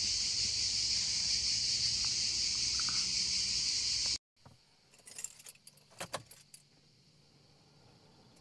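A loud, steady high-pitched chorus of cicadas for about four seconds, then a sudden cut to much quieter scattered clicks and jingling of car keys.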